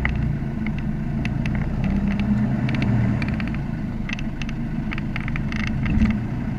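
Off-road 4x4 engine running at low speed while crawling up a rocky dirt track, with scattered clicks and crunches of gravel and stones under the tyres.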